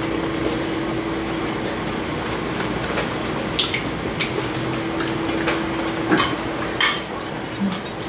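Utensils clinking against bowls and the hot pot, the sharpest clinks coming near the end. A steady low hum runs underneath and stops about six seconds in.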